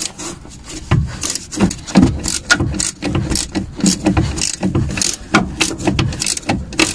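A wrench loosening the 18 mm nut on a front stabilizer link while the link's ball stud is held with a Torx T40 key, giving a series of short metallic clicks and scrapes, a few a second.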